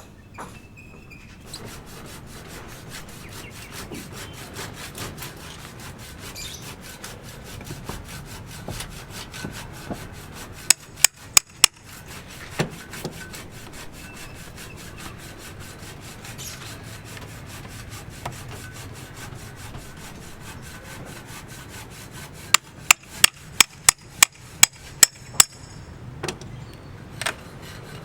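Hand-tool work on a building site: continuous scraping and rubbing with fast small ticks, broken twice by runs of sharp, evenly spaced hammer-like knocks, four near the middle and about eight near the end.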